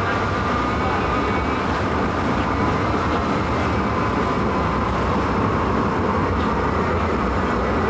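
DisneySea Electric Railway train running steadily, heard from inside the passenger car: an even rumble with a faint steady whine above it.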